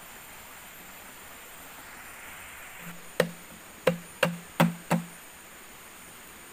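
Five sharp knocks in quick succession, starting about three seconds in and over within two seconds, each followed by a brief low ring.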